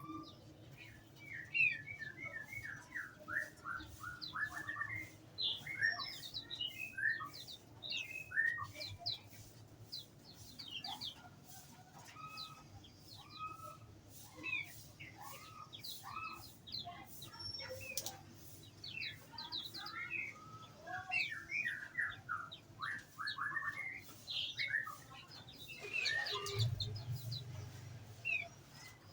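A group of small songbirds in an aviary chirping and calling over one another in quick, overlapping notes, with a brief low rumble near the end.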